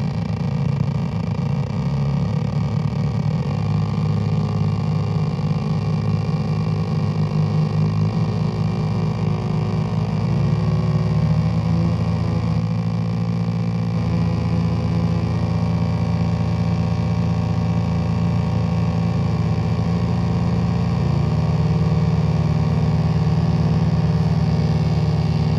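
Low electronic drone from a DIY noise-synthesizer panel, with S9018 avalanche-transistor drone oscillators alongside Ciat-lonbarde circuits. Several steady pitches are layered at once. The pitches shift as the knobs are turned, about ten seconds in and again later, and a fast stuttering pulse joins near the end.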